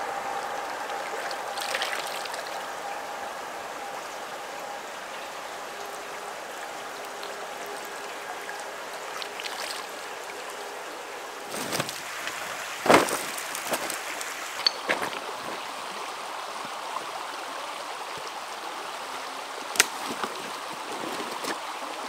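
Shallow stream running steadily over a pebble bed. About halfway through come a few sharp clacks of river stones underfoot on the pebble bank, and one more sharp click near the end.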